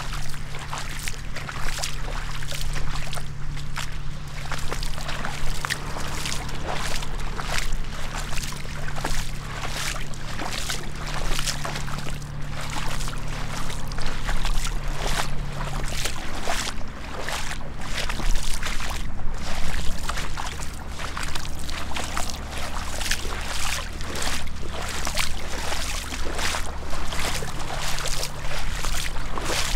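Two people in gumboots wading through shallow floodwater, their steps splashing and sloshing in a steady rhythm.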